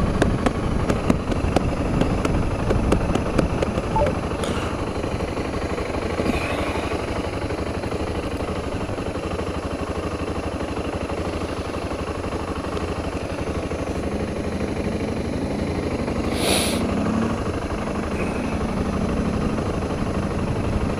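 Motorcycle engine running under wind rush on the camera microphone, with buffeting clicks in the first few seconds. A short hissing burst comes about three quarters of the way through.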